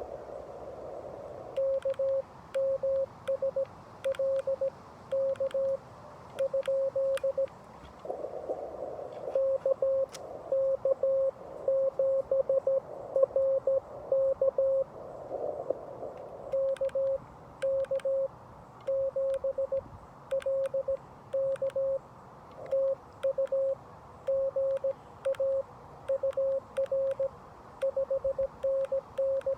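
Morse code (CW) at about 17 words per minute, heard as a single mid-pitched tone from a Xiegu G90 HF radio keyed in dots and dashes. Faint clicks are scattered through it, and a few times there is a short burst of band hiss.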